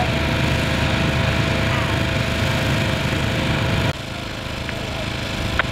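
Small gasoline engine of a portable hydraulic rescue-tool power unit running steadily. The sound drops abruptly to a quieter level about four seconds in, with a few faint clicks near the end.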